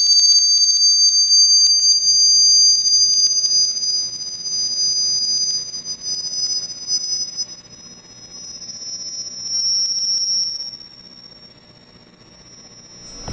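High-pitched steady tone of a sand-covered square resonance plate (Chladni plate) being driven into vibration, the sand settling into node patterns. Two shrill pitches slowly slide together into one while the loudness swells and dips, then fades away near the end.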